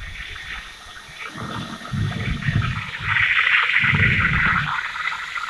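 Blackwater sewage being pumped down a pump-out hose and clear pipe, rushing and gurgling in surges, and growing louder and steadier about three seconds in.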